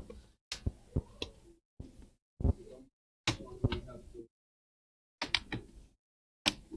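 Handling noise from objects being moved about on a workbench: about seven short bursts of clicks and light knocks, each ending abruptly in dead silence.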